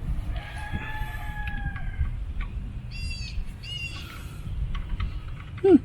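Bird calls: one long drawn-out call, then a few short calls about three seconds in, over a steady low rumble. A short, loud sliding sound comes near the end.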